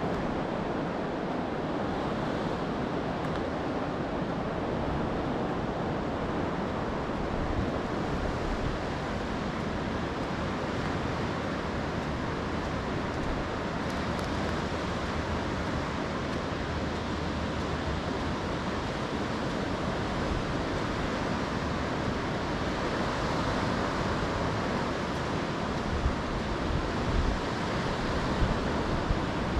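Steady wash of sea surf on a sandy beach mixed with wind, with a few brief low bumps of wind on the microphone near the end.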